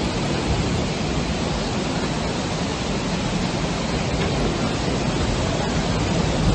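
Steady, unbroken rush of fast-flowing floodwater surging through a street.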